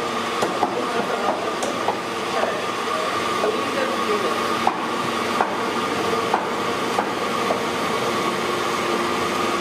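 A steady mechanical hum holding a few fixed tones, with scattered sharp knocks and clicks at irregular intervals over it.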